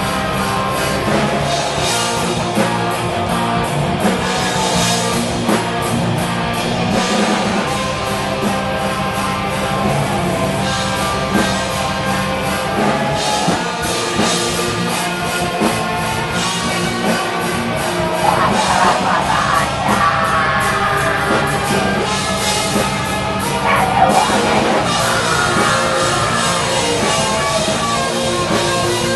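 Black metal band playing live: distorted electric guitar, bass guitar and a drum kit at full volume, with a vocalist singing into a microphone over it.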